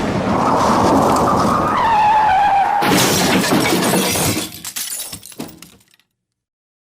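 Car crash sound effect: tyres squealing in a skid, the squeal dropping a little in pitch, then a sudden crash of crunching metal and shattering glass nearly three seconds in. Scattered pieces of debris tinkle and clatter as it dies away.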